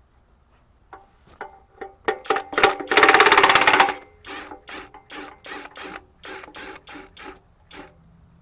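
Ratcheting metal mechanism clicking: a loud, fast run of clicks lasting about a second, a few seconds in, then short ratcheting strokes about three a second that fade out near the end.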